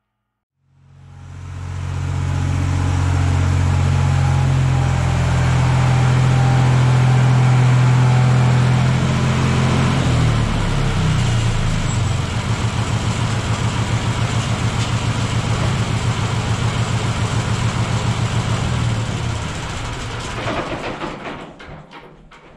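Small farm tractor's engine running steadily, then throttled back about halfway through to an uneven idle in which each firing stroke can be heard. It stops near the end.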